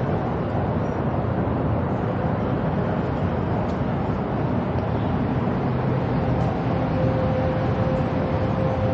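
Steady noise of city road traffic, with a faint steady hum that comes in about six seconds in.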